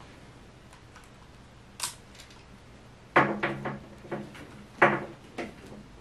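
A cat's fabric-covered toy play-gym frame knocking and rattling as the cat grabs and pulls at its arch and hanging toys: one click about two seconds in, then a quick run of several knocks from about three seconds, loudest at the start of the run and again near five seconds.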